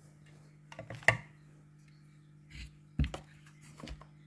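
Hands working a plastic power bank casing, trying to pull it apart: a few short clicks and knocks, the loudest about a second in and about three seconds in, over a faint steady hum.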